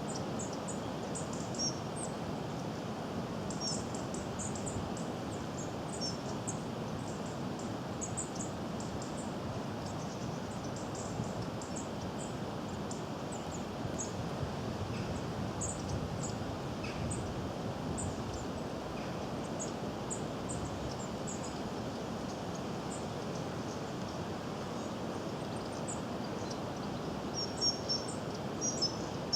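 Goldcrest giving very high, thin, short calls scattered throughout. Near the end they run into a quick series of repeated high notes. A steady low background rumble lies underneath.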